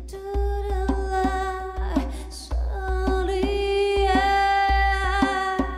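A woman singing long held notes over band accompaniment: repeated deep bass notes and light percussive clicks.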